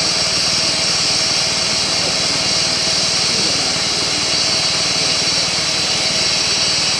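Bubble film (bubble wrap) production machine running steadily: a continuous loud mechanical drone with a strong high hiss and a steady hum.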